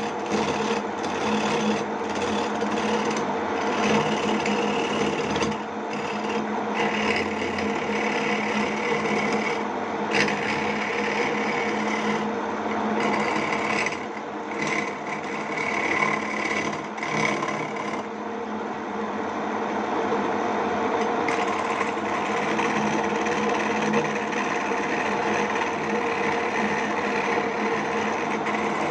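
Homemade mini wood lathe running steadily with a constant motor hum, while a cutting tool scrapes the spinning wooden lure blank in passes that swell and fade every second or two.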